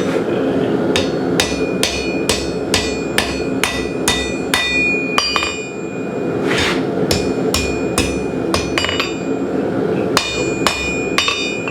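Hand hammer striking hot 1/4 by 1 inch flat steel bar on an anvil, a steady run of blows about two and a half a second, each with a bright ring, pausing briefly midway; the bends of a door pull are being steepened. A steady low rumble runs underneath.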